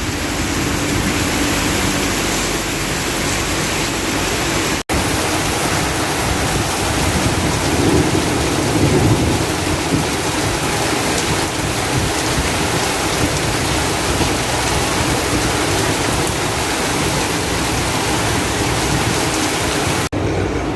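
Heavy tropical rain pouring down steadily in a dense, even hiss, with two momentary breaks in the sound.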